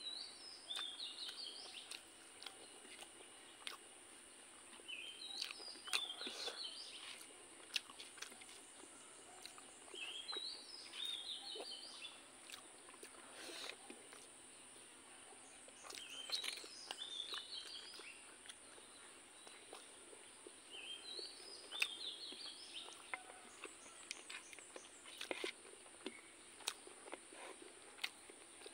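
A songbird repeating a short run of quick chirping notes about every five seconds, over a steady high-pitched drone, with scattered soft clicks of eating by hand from a plate.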